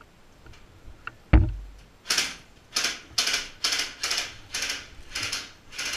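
A rented airsoft rifle firing about eight single shots, roughly two a second, starting about two seconds in. Just before them comes one heavy thump, the loudest sound.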